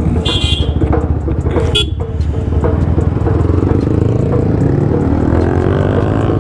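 Yamaha R15M's single-cylinder engine running at low speed with rapid firing pulses, pitch climbing over the last couple of seconds as the bike pulls away. A vehicle horn toots briefly near the start and again about two seconds in.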